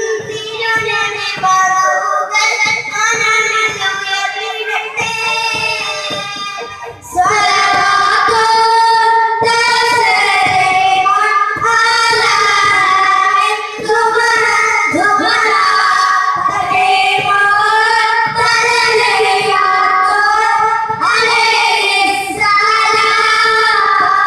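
Group of boys singing an Islamic devotional song into microphones over a PA, a lead voice with others singing along. The singing gets much louder about seven seconds in.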